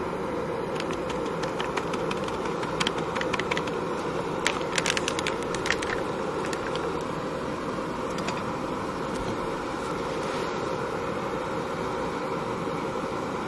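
A steady rushing noise throughout, with light clicks and rattles from coffee-making gear being handled. The clicks are scattered at first and bunch into a denser clatter around the middle.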